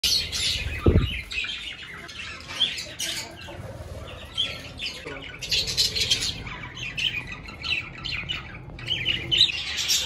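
A flock of budgerigars chattering, a dense run of short chirps and squawks from many birds at once, with a low thump about a second in.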